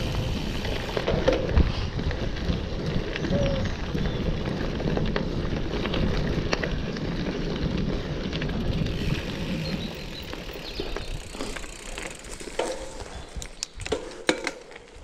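Cube Nuroad Pro FE gravel bike rolling over a dirt forest track: tyre rumble and crunch, with the bike rattling and wind on the microphone. The rumble eases about two-thirds of the way through, leaving a few sharp clicks and knocks near the end.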